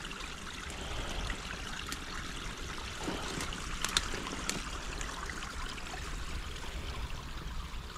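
Water steadily trickling and running through a beaver dam that has been opened up to let it flow, with a couple of faint clicks about halfway through.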